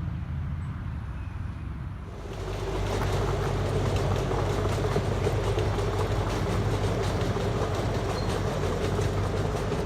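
Small-gauge park ride-on train running past on its track. Its running noise grows louder about two seconds in, then holds steady, with a steady hum and fast fine clicking from the wheels.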